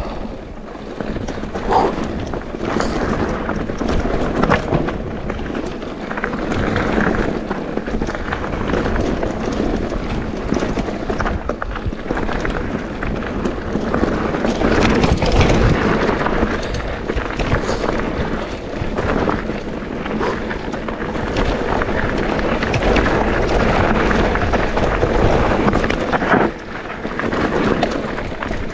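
Mountain bike rolling fast down a dirt bike-park trail: continuous tyre noise on the ground with a low rumble, and the bike clattering over bumps and roots throughout.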